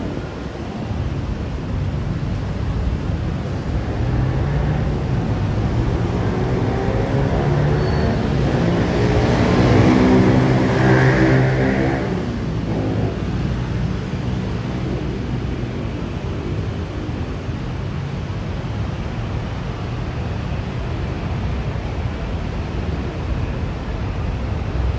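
Steady city road traffic rumbling below, with one heavy vehicle passing and growing loudest about ten seconds in before fading back into the traffic.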